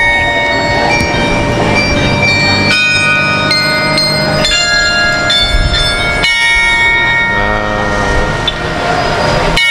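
Church tower carillon playing a slow melody: a bell note struck every second or two, each ringing on and overlapping the next. The tower holds 45 bells that play melodies together.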